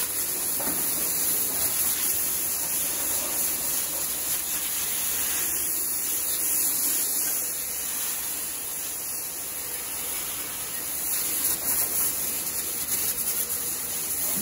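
Hose nozzle spraying a steady jet of water, a continuous hiss as it washes down milking clusters and the parlour floor.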